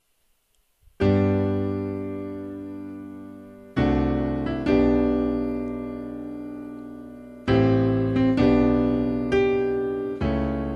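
Yamaha digital piano, recorded straight from its line output, playing a slow chordal intro. After about a second of silence, full chords are struck every one to three seconds and each is left to ring and fade.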